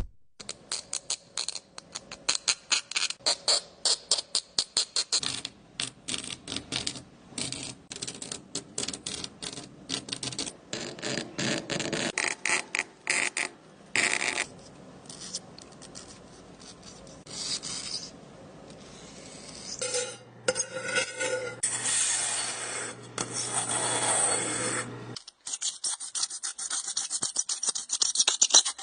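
Scraping and rasping strokes: many short, sharp ones in quick succession for the first half, then longer drawn-out scrapes later on.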